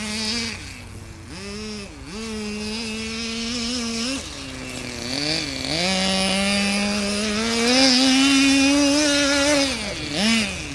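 The small two-stroke engine of a vintage Kyosho Sand Master RC truck, revving up and down as it is driven. It dips off throttle several times, holds a long high-revving stretch in the second half, then drops back near the end.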